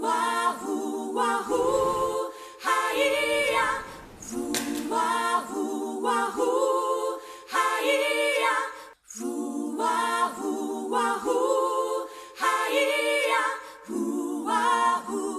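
Voices singing a capella, with no instruments. A short break about nine seconds in, after which the same sung phrase seems to come round again.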